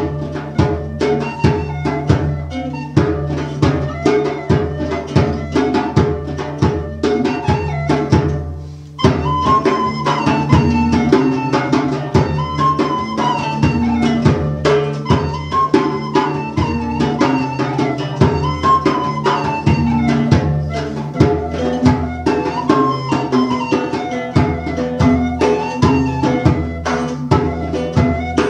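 Live folk instrumental: a transverse flute plays a rising-and-falling melody over quick, steady strokes on a hand drum and a plucked lute, with a low drone held underneath. About a third of the way in the music thins out for a moment, then comes back in full.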